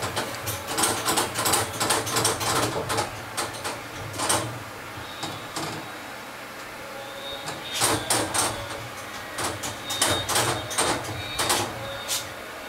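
Irregular clusters of quick clicks and rattles from a kitten scrambling about a wire-floored cage and its plastic litter tray while it plays at a hand, with a brief lull partway through.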